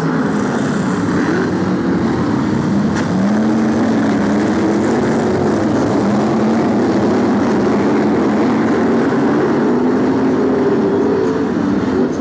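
A pack of BriSCA F1 stock cars racing, several V8 engines running together, their pitch rising and falling as the cars lift off and accelerate.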